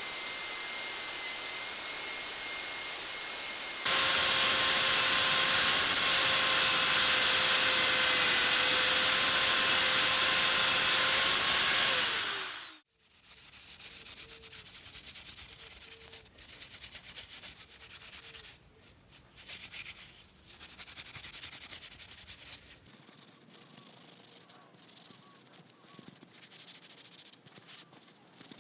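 A small electric power tool runs at a steady high speed with a whine, then spins down with falling pitch about twelve seconds in. After that come irregular rubbing and scraping strokes, like hand sanding or scrubbing metal.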